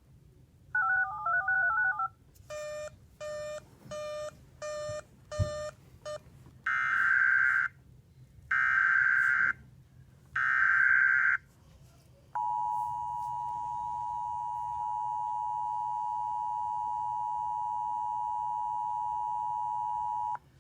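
Emergency Alert System tones: a short warbling data burst ending one alert, six short electronic beeps, then three screeching one-second SAME header data bursts starting the next alert. After these comes the steady two-tone EAS attention signal, held for about eight seconds.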